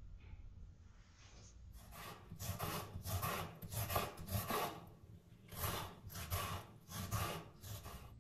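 Rhythmic rasping strokes of food being worked by hand with a kitchen tool, about two a second. They start about two seconds in and pause briefly midway.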